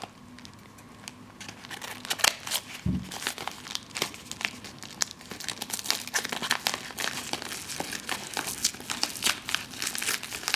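White mailer package being pulled and torn open by hand: crinkling, rustling packaging, a dense run of irregular crackles starting about two seconds in.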